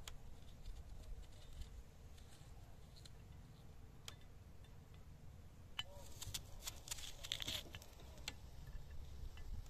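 Scattered light clicks, taps and rustles of food being prepared by hand, busiest about six to eight seconds in.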